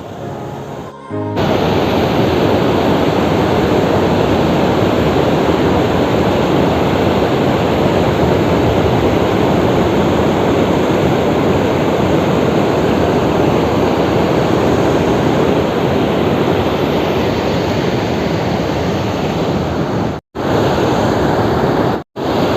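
Loud steady rush of river water pouring over a check-dam weir, a waterfall-like flow. It cuts out twice for an instant near the end.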